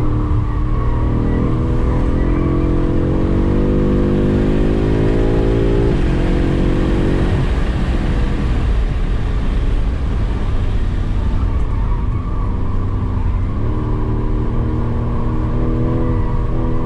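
BMW M5's twin-turbo V8 heard from inside the cabin at full throttle, its note climbing through a gear and dropping at an upshift about six seconds in. Tyre and road noise on the wet track swells at top speed, then the engine note steps up and climbs again near the end as the car comes off the brakes for a corner.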